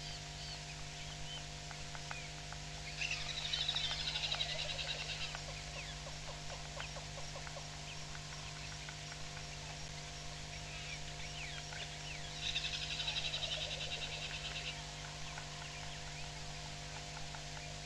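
Grey go-away birds giving harsh, drawn-out alarm calls, two loud bouts of about two seconds each, about three seconds in and again about twelve seconds in, in distress at a perched hawk eagle. Small bird chirps in between, over a steady electrical hum from the feed.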